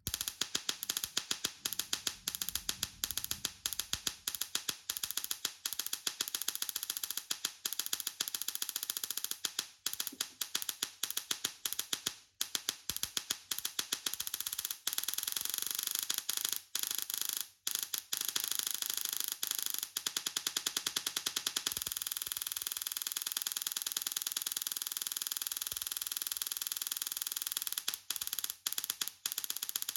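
Tesla coil firing: a loud, rapid buzzing crackle of electric sparks that starts abruptly and is broken by a few brief pauses.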